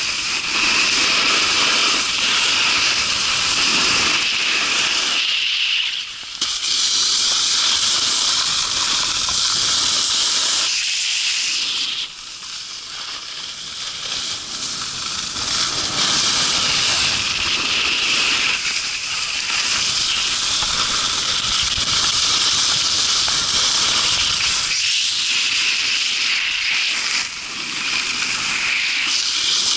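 Snowboards sliding and carving on firm, packed snow: a continuous hissing scrape that swells and fades with the turns, with a few brief lulls.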